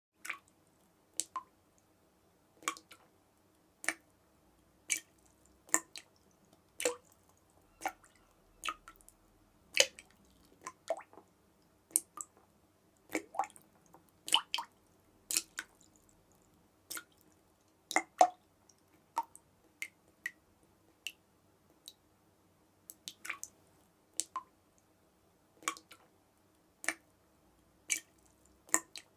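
Water dripping in single drops at an irregular pace, about one or two a second, over a faint steady hum.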